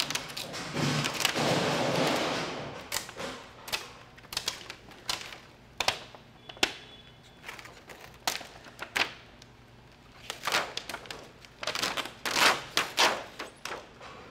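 Thin plastic reflector sheet being pried and peeled off a TV's LED backlight array: a run of sharp clicks and snaps as its edge comes free, with crinkly rustling when the sheet flexes. The rustling and snapping are loudest near the end, as the sheet is lifted away.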